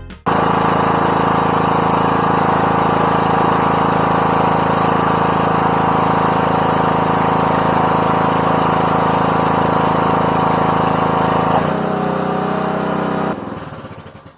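Small gasoline engine running steadily, easing off slightly about twelve seconds in, then winding down and stopping near the end.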